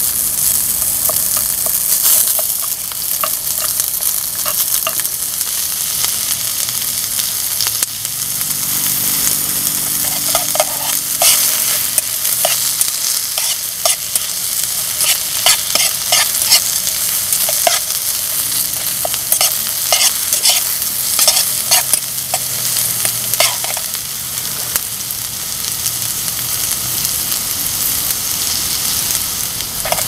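Canned button mushrooms sizzling as they are stir-fried in a pan, with a spatula or spoon repeatedly clicking and scraping against the pan.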